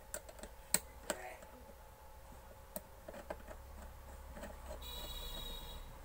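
Light metallic clicks and taps of a screwdriver and small parts as the screws of a mixer grinder motor's bush bracket are tightened, the sharpest tap about three quarters of a second in. Near the end a brief high-pitched whine sounds for about a second over a low steady hum.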